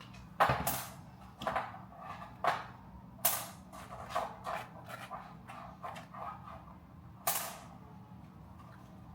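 About half a dozen sharp clacks and knocks of kitchen items being handled, with quieter rustling and tapping between them, over a faint steady hum. The loudest clacks come near the start and about seven seconds in.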